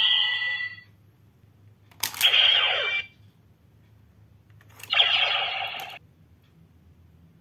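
Electronic sound effects from a recast DX Decadriver toy belt's speaker, played for the Kamen Rider Kiva card. A gliding jingle cuts off about a second in. Then come two short effects, each about a second long and each opening with a sharp click, around two and five seconds in.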